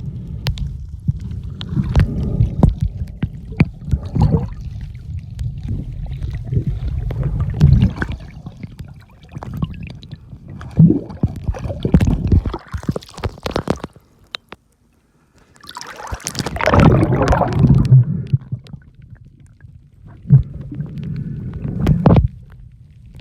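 Muffled water sloshing and bubbling with knocks against a waterproof camera case while snorkeling over a reef. The sound cuts out briefly about two-thirds through, then comes back with a loud rush of water.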